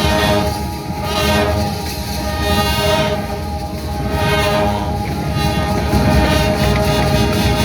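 Marching band playing loud, sustained brass chords over drums, swelling and easing off repeatedly.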